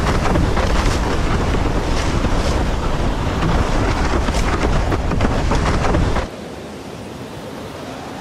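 Loud rushing wind and water, with wind buffeting the microphone and occasional splashing hisses of spray; it cuts off suddenly about six seconds in, leaving quieter wind-and-surf noise.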